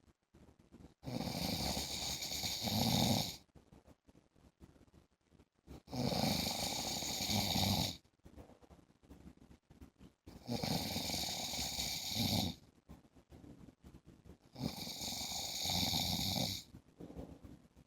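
A man snoring in his sleep: four long, rasping snores of about two seconds each, coming regularly every four to five seconds with quiet pauses between.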